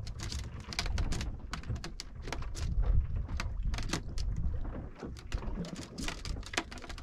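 Gusty wind rumbling on the microphone, with irregular sharp clicks and splashes of water.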